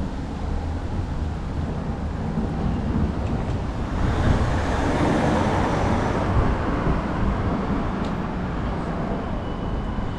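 Road traffic noise, a steady rumble and hiss that grows louder about four seconds in.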